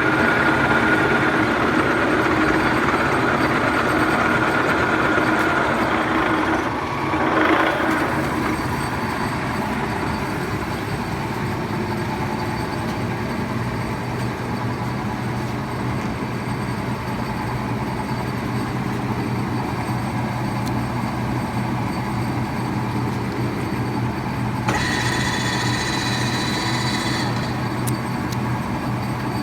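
1M63 screw-cutting lathe running with no load, its spindle and gearbox turning steadily with a gear whine. A brief louder swell comes about seven seconds in, and near the end a higher whine joins for a couple of seconds.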